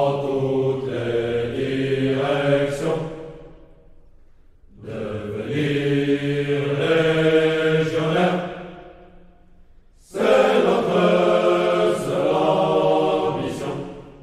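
A group of men singing a slow French Foreign Legion marching song, in three long phrases with short pauses between.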